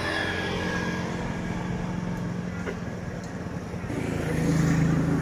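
A motor engine running steadily, its pitch and loudness stepping up about four seconds in.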